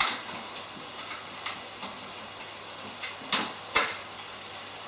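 Shrimp frying in a pan: a steady sizzle with small crackles. Two short knocks come a little past three seconds in.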